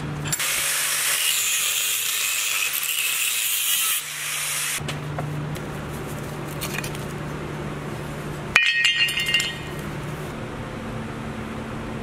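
An old fluid-filled BMW E60 engine mount being taken apart with hand tools: a steady hiss for about four seconds, then, about eight and a half seconds in, a sharp metallic clink that rings briefly.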